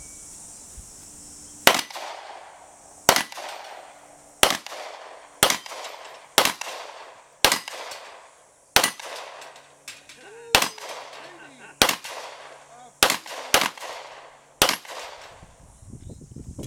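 Gunshots from a firearm during a timed 3-gun stage: about thirteen shots at a fairly steady pace of roughly one a second, each a sharp crack trailing off, ending a couple of seconds before the end.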